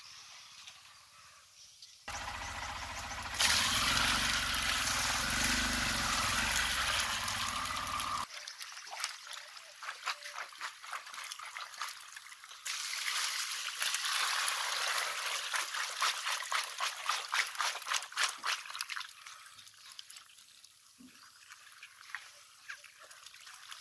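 Water trickling and pouring around live stinging catfish squirming in a wet plastic crate. A loud rush of water comes a couple of seconds in, followed by many quick wet clicks and slaps from the wriggling fish that thin out near the end.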